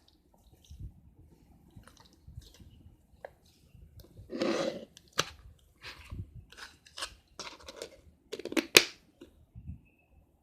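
Slime being poked and pressed: soft, wet squishes with sticky crackling pops, a longer squelch about four seconds in and sharper pops in the second half, the loudest near the end.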